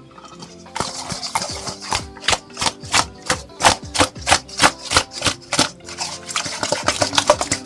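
Background music with a fast run of sharp clicking beats over it.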